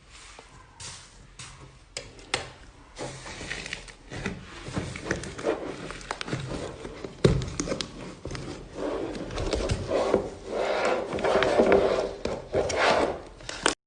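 Slime being squeezed, stretched and pressed by hand, making a run of irregular clicks, pops and squishes. It grows louder over the last few seconds, then cuts off suddenly near the end.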